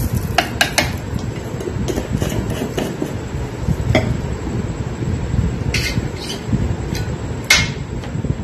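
Scattered light clinks and knocks of kitchen containers and a stainless-steel mixer jar being handled, about half a dozen in all, over a steady low rumble.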